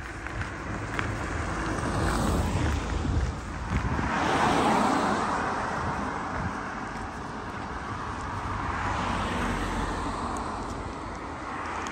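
Cars passing on a road close by, their engine and tyre noise swelling and fading in turn, the loudest pass about four to five seconds in.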